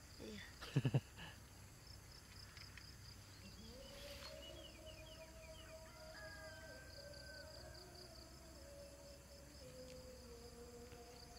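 Faint evening chorus of crickets and other insects chirping steadily, with a brief low knock about a second in and a faint steady hum through the middle.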